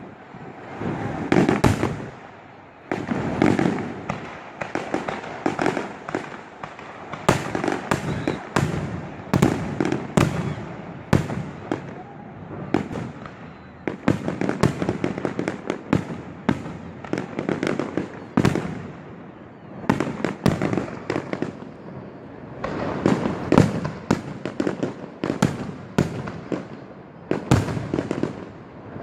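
Fireworks display: shells bursting in a dense, irregular barrage of sharp bangs, often several a second, over a continuous rumble.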